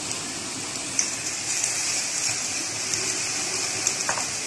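Gram-flour-battered onion pakoras deep-frying in hot oil over medium heat: a steady sizzle with scattered crackles.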